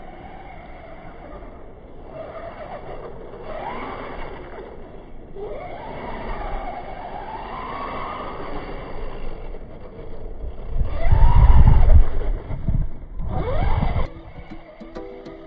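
Electric RC buggy motor whining, its pitch rising and falling as the throttle is worked on and off around a dirt track. About eleven seconds in a heavy low rumble becomes the loudest sound for a few seconds, and music starts just before the end.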